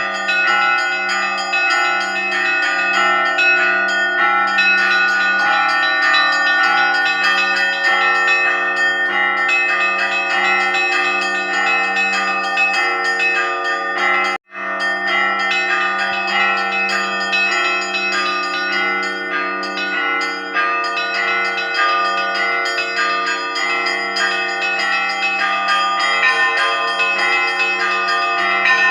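Russian Orthodox church bells rung together: a low bell sounds in a steady beat under a dense peal of smaller, higher bells. The sound cuts out for an instant about halfway through.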